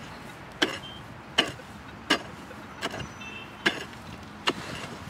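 Pickaxe striking dry, hard-packed soil: about six sharp blows at a steady pace, roughly one every three-quarters of a second.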